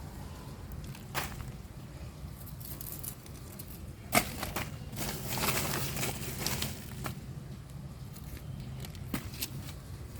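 Handling noises: a few light clicks, a sharp knock about four seconds in, then about two seconds of rustling and crinkling, with more clicks after. A low steady hum sits underneath.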